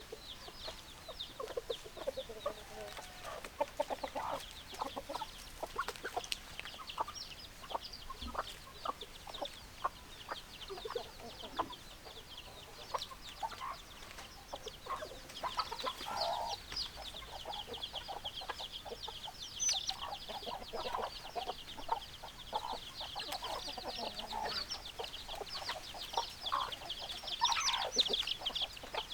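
A flock of chickens clucking on and off, over a steady, dense chatter of quick high-pitched chirps.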